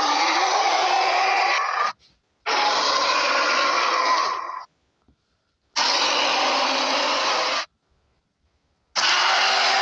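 Monster growls and roars voiced by a person and heavily processed into a harsh, raspy rasp. The clip has separate bursts of about two seconds, each cut off abruptly, with short silences between: one burst ends about two seconds in, two more follow, and a fourth starts near the end.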